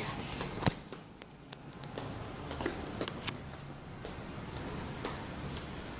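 Footsteps and camera handling in a concrete parking garage: scattered light clicks and knocks, with one sharper knock under a second in, over a low steady rumble.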